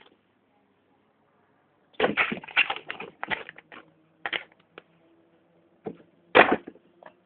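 A cat playing, its paws and claws scrabbling and knocking against things in quick clattering bursts: a dense run of taps about two seconds in, then scattered single knocks, the loudest a little past six seconds.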